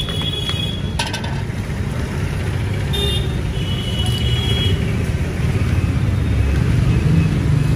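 Steady low rumble of street traffic, with a sharp click about a second in and a few brief high-pitched tones.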